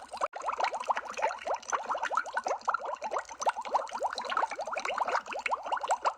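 Underwater bubble sound effect: a dense stream of bubbles, each a short rising blip, bubbling continuously.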